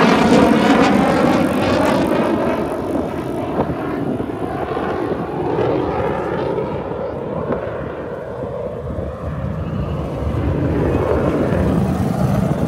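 Military jet flying past overhead, a loud steady engine rush that shifts in pitch as it passes. It fades over the next several seconds, then builds again near the end.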